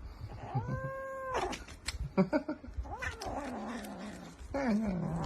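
A cat yowling in drawn-out calls: one held call about a second in, another around three seconds, and a lower, falling call near the end, with a few short knocks in between.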